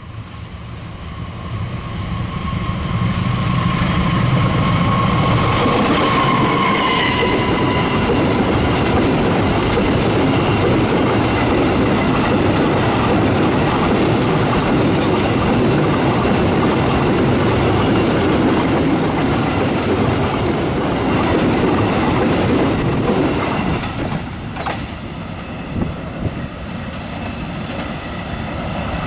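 Freight train passing close by. A diesel locomotive hauling a long string of flat wagons approaches, and the sound swells over the first few seconds. It then becomes the steady sound of the wagons' wheels rolling over the rails, easing slightly near the end as the last wagon goes by.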